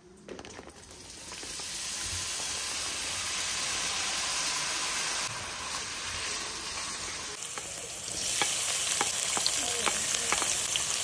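Diced eggplant frying in oil in a stainless steel pot, a steady sizzle that builds over the first two seconds, stirred with a wooden spoon. About seven seconds in the sizzle turns brighter, with sharp crackles and clicks, as chopped onion and green pepper go into the pot.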